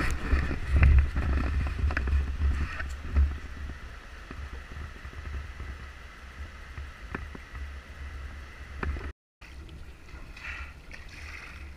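River rapids rushing, with wind buffeting the microphone in the first few seconds. Just after nine seconds the sound drops out for a moment and comes back as quieter, steadier water noise.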